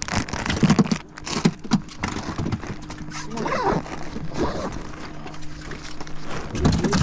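Clear plastic zip bag of soft-plastic lures crinkling and rustling as it is handled and stowed in a tackle bag, the crackle densest in the first couple of seconds, over a steady low hum.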